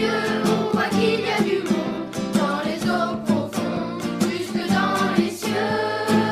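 A song with a singing voice over instrumental accompaniment and a steady beat.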